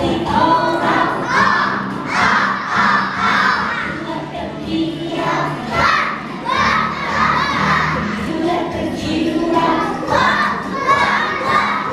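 A large group of young children singing loudly together, close to shouting, in pitched phrases that rise and fall.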